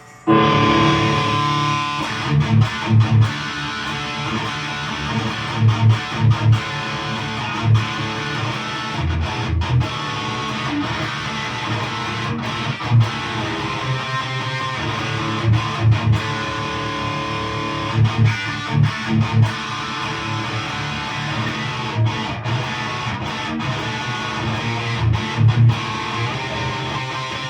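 Mesa/Boogie Mark V tube guitar amp on channel 3 with the gain almost full up, playing high-gain distorted electric guitar with repeated heavy low-note hits. The repaired amp is working properly.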